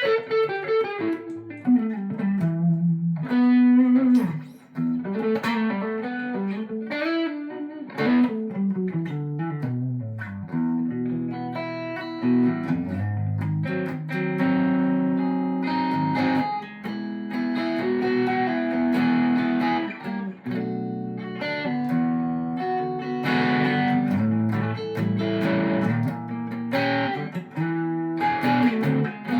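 Electric guitar played through a Precision Drive overdrive pedal and an Oceans 11 reverb, with the guitar's volume rolled back to take some bite off the gain. It opens with falling single-note runs, then moves to held chords and short melodic phrases.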